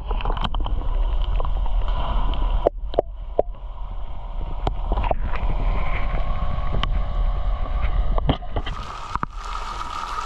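Muffled gurgling and sloshing of pool water around a camera held just under the surface of a cenote, with a low rumble and scattered clicks and knocks. About eight and a half seconds in, the camera breaks the surface and the hiss of water falling from the rock overhang and splashing into the pool comes in.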